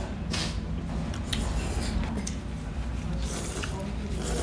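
Stir-fried jjamppong noodles being slurped in short bursts, with a few light clicks from chopsticks and bowl, over a steady low background hum.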